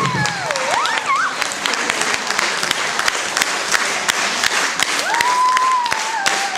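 Audience applause at the end of a performance: dense, rapid clapping, with a few high gliding calls from the crowd early on and one long held call near the end.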